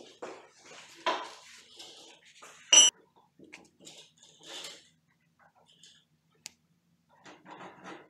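Metal clinks and scrapes as a black metal door hinge is handled and its screws are turned in by hand with a screwdriver. A knock comes about a second in, a sharp ringing metal clink near three seconds in is the loudest sound, and a run of short scratchy strokes follows near the end.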